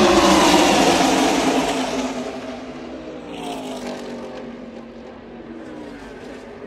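Racing engines of a pack of stock-car race vehicles passing at speed, loudest at the start. Their note falls in pitch and fades over about two seconds, then a second group goes by with another falling, quieter engine note.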